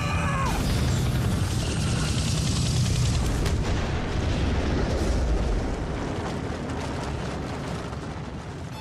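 Dramatised sound of a Chinook helicopter crashing into a hillside and exploding: a heavy boom and long low rumble with crackling strokes of debris through it, dying away over the last few seconds.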